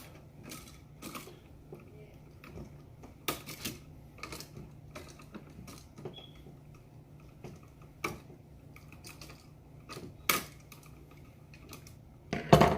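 Wire cutters snipping the solid copper wires off an old household outlet, a series of irregular sharp clicks and snaps with small handling clatter in between; the loudest snap comes just before the end.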